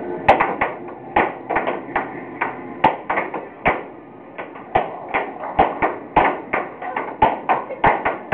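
Air hockey puck clacking against the mallets and the table's rails in a fast rally, with sharp, irregular hits about three a second over a steady hum.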